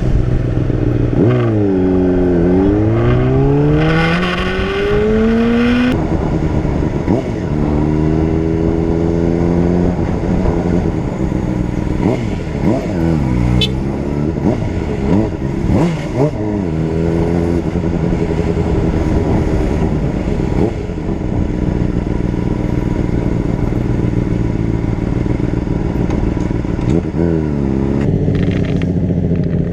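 Honda CBR600RR's inline-four engine on the road. The pitch drops sharply about a second in, then climbs steadily for several seconds as the bike accelerates, and holds steady. It dips and rises quickly a few times around the middle and again near the end, as the throttle is closed and reopened.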